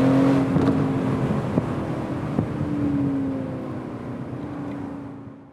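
Aston Martin DB11 V8's 4.0-litre twin-turbo V8 running at a fairly steady pitch, with two short sharp cracks in the middle, fading out near the end.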